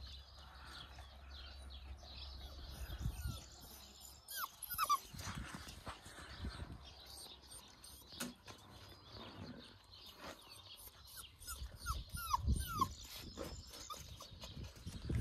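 Pups giving short, high, falling whimpers: a few about four to five seconds in and a run of them near the end, with scattered knocks and rustling in between.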